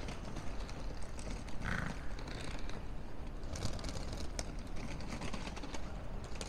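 Airport terminal hall ambience: a steady low hum with scattered footsteps and sharp clicks on the hard floor.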